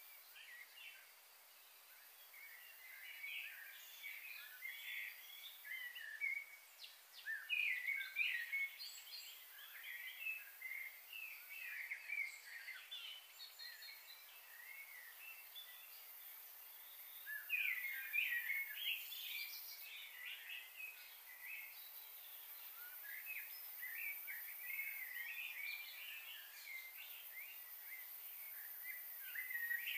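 Small birds chattering in waves of quick, high overlapping chirps, over a faint steady outdoor hiss.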